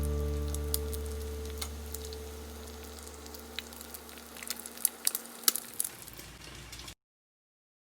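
The last guitar chord of the background music dies away slowly. Faint crackles and clicks come through it, busiest around five seconds in. All sound cuts off abruptly about seven seconds in.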